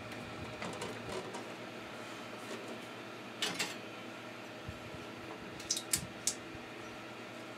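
Light clicks and clacks of the hinged wooden front door of a 3D-printer enclosure being opened and hands working on the print bed inside: a few soft taps about a second in, two clacks near the middle, then three sharp clicks near the end. A steady hum runs underneath.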